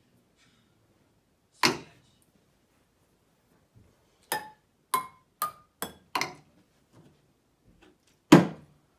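A small thrown ball striking stainless steel pans and pot lids, each hit giving a short metallic ring. There is one hit about two seconds in, then a run of five bounces coming quicker and quicker, and the loudest, duller hit near the end.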